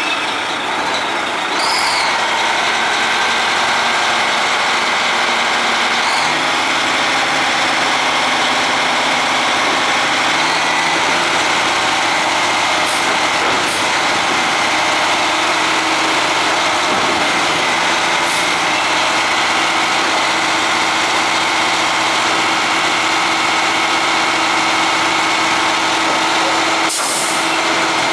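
Mack roll-off truck's diesel engine running steadily while its hydraulic hoist slides a dumpster off the tilted frame. A brief hiss of air comes near the end.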